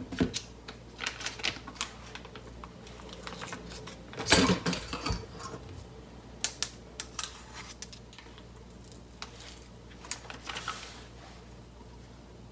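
Metal spoon scraping and clinking against a plastic tub of miso paste and a mesh strainer: scattered light clicks and scrapes, with a louder clatter about four seconds in.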